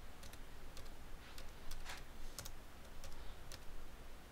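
Computer keyboard keys pressed one at a time: a handful of separate, light clicks spread out, the loudest about two seconds in.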